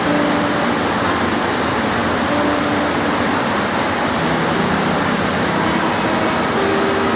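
Steady rain, an even hiss with no breaks, with a few faint short tones in the background.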